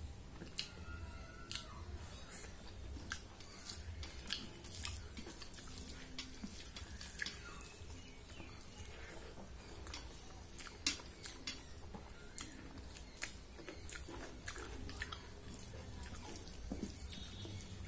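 Close eating sounds: wet mouth clicks and smacks of chewing, with fingers mixing rice and greens on a stainless steel plate. The clicks come irregularly throughout, one sharper about eleven seconds in.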